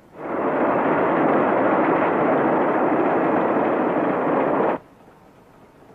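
Loud, steady rushing noise of the express train running, rising in just after the start and cutting off abruptly near the end.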